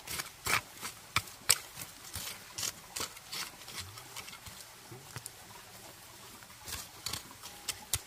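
Dry leaves and twigs crackling and snapping as hands clear litter and weeds from loose garden soil. The sharp snaps come scattered, thickest in the first three seconds and again near the end.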